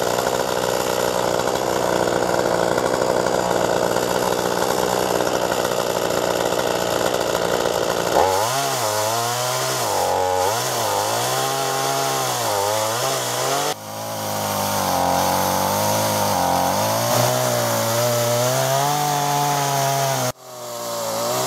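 Chainsaw running at high revs while ripping lengthwise through a copper beech log in a chainsaw milling attachment. The engine note is steady at first; from about eight seconds in its pitch wavers up and down under the load of the cut. The sound breaks off abruptly twice, near the middle and near the end.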